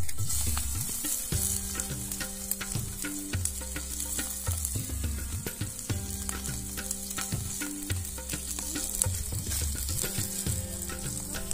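Oil sizzling in a metal wok as small chopped pieces fry, with the spatula scraping and tapping against the pan as it is stirred.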